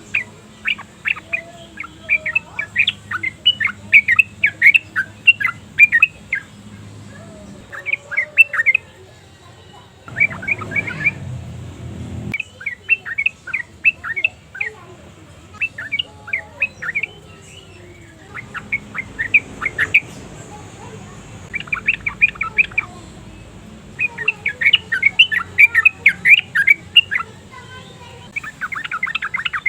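Yellow-vented bulbuls calling in bouts of quick chirps, each run lasting a few seconds with short pauses between, over a faint low hum.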